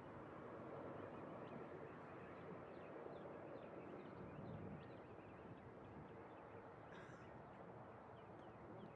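Faint birds chirping in short, scattered calls over low, steady outdoor background noise.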